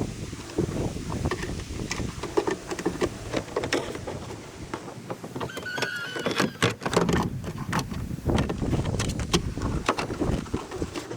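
Scattered clicks and knocks of hands-on work, over wind rumbling on the microphone, with a few short high chirps.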